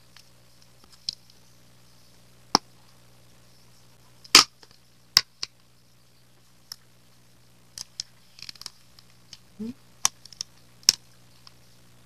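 Scattered sharp clicks and small handling noises as a cup of ice cream is opened: the lid pulled off, the paper seal peeled and a small plastic spoon handled. The loudest click comes about four seconds in.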